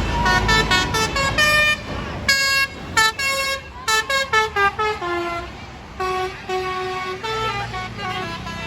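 A bus's Basuri telolet horn playing a quick melody of short notes that step up and down in pitch, with a run of falling notes around the middle, over the bus's engine running.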